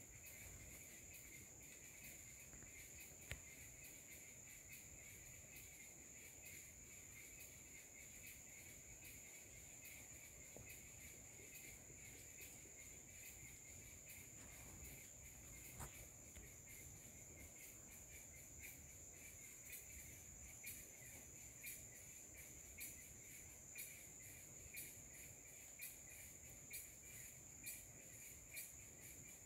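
Faint steady chirring of insects, a high drone with a weaker lower band beneath it, pulsing about once a second in the second half.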